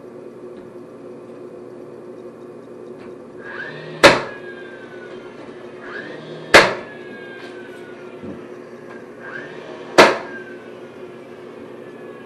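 Cordless flywheel nailer firing three times, about 4, 6.5 and 10 seconds in. Each shot comes after a short rising whine as the motor spins up and is followed by a falling whine as it winds down.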